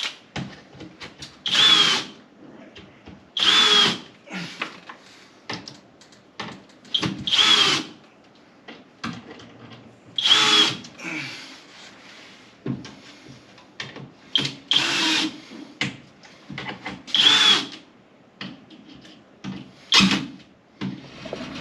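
Screw gun driving screws into sheetrock, about seven short whirring bursts a couple of seconds apart, with small knocks and handling in between.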